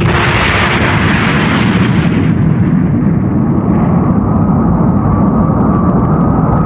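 Cartoon explosion sound effect: a sudden loud blast whose hiss fades after about two seconds into a long, steady rumble that cuts off abruptly.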